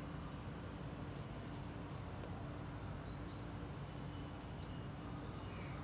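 Steady low background noise with a faint hum. About a second in, a small bird sings a quick run of short high chirps that steps down in pitch and ends after about two seconds.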